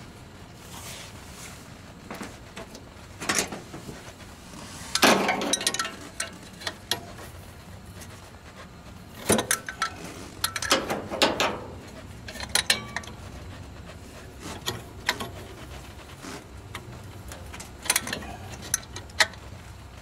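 Metal wrench clicking, clinking and scraping in irregular bursts as it turns a brass pipe fitting at the base of an air-conditioner compressor. The loudest clanks come about five seconds in and again between about nine and twelve seconds in.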